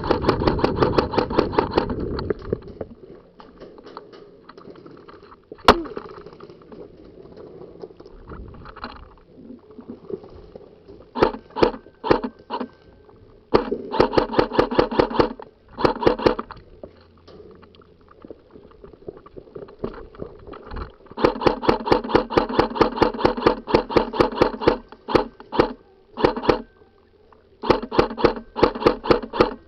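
Airsoft rifle firing on full auto in several bursts, a rapid even rattle of shots. The bursts run from under a second to about four seconds, the longest near the end, with a single sharp crack about six seconds in.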